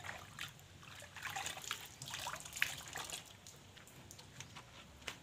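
A damp drying cloth wiping and rubbing wet plastic engine-bay parts around the air filter housing, with water trickling and dripping. Faint and irregular, with scattered small rubbing and tapping sounds, a few sharper ones in the first three seconds.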